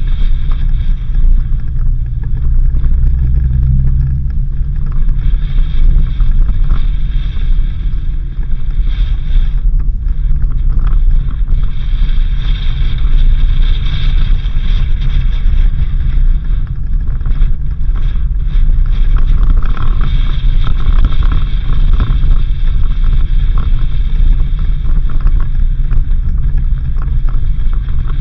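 Suzuki Jimny driving on a dirt road: a steady, loud low rumble of engine and tyres, with wind on the microphone.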